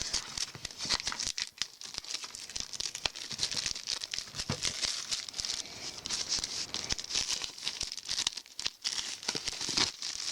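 Plastic shrink wrap being torn and peeled off a DVD box set, with dense irregular crinkling and crackling.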